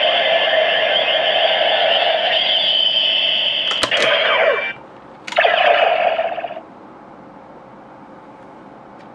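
DX Neo Decadriver toy belt playing its electronic sound effects through its small built-in speaker, with sharp plastic clicks of the belt's mechanism about four seconds in. A second short burst of effect sound follows, then only a low hiss.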